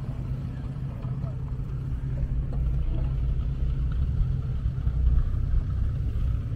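A steady, low engine drone running without change, with faint voices in the background.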